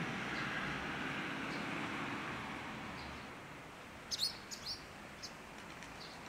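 Small birds chirping in short, sharp calls, with a quick burst of several chirps about four seconds in. Under them, the noise of a passing vehicle fades away over the first three seconds.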